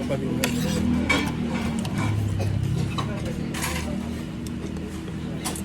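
Spoon and fork clicking and scraping on a plate during a meal, a few short clicks at uneven intervals over a steady low hum.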